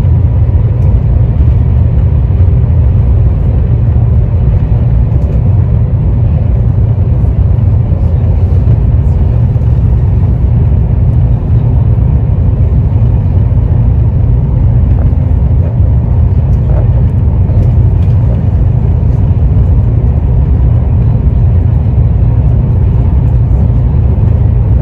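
Steady, loud low rumble of an Italo high-speed train running at speed, heard from inside the passenger cabin.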